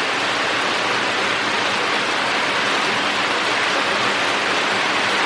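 Steady, even rushing noise with no breaks or separate events.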